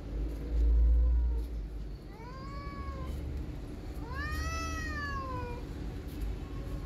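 Cat meowing three times: a faint meow about half a second in, a rising-then-falling meow around two seconds in, and a long, drawn-out meow that falls in pitch about four seconds in. A low rumble near the start is the loudest sound.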